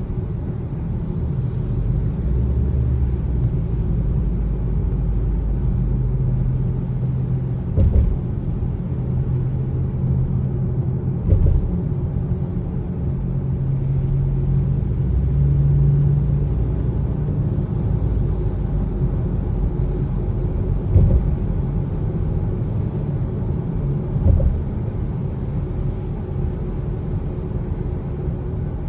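A 2020 Subaru Ascent's cabin on the move: a steady low rumble and hum, with four short thumps spread through it.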